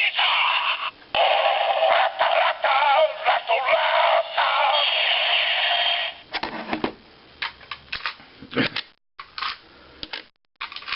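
A Kamen Rider OOO DX Taja Spinner toy plays its electronic yellow 'speed' combo sound through its small speaker: a synthesized voice singing over music, stopping about six seconds in. Scattered light clicks follow.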